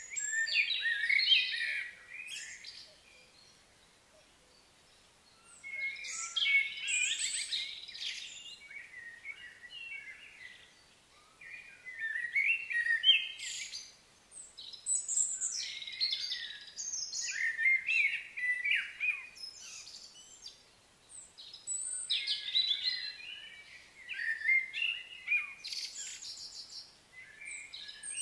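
Wild songbirds chirping and singing in bursts of quick phrases, coming every few seconds with short lulls between.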